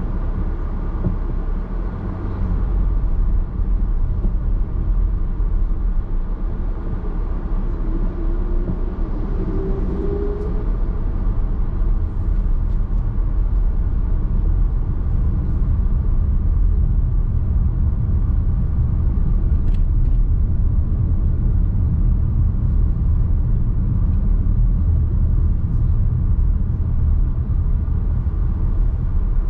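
Driving noise inside the cabin of a Nissan X-Trail Hybrid on the move: a steady low rumble of tyres on the road, getting louder a few seconds in. A faint rising whine comes in about seven seconds in and fades out a few seconds later.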